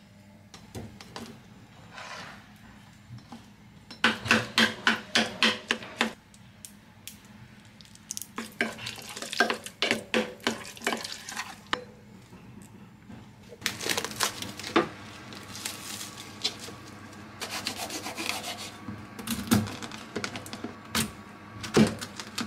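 Kitchen prep sounds: bursts of quick clicking and knocking strokes, several a second, from a wooden spoon stirring and knocking in a stainless steel pot of simmering fig jam. Near the end a knife thuds through pineapple onto a plastic cutting board.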